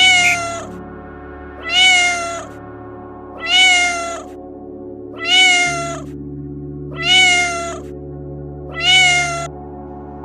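An animal call, pitched with a slight rise and fall, repeated six times at even intervals about two seconds apart. A steady low background drone runs underneath.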